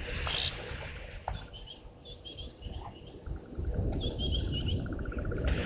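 Outdoor bush ambience: small birds chirping in short repeated high notes over a steady high insect drone. A fast pulsing trill joins in the second half, and a low rumbling noise grows louder about three and a half seconds in.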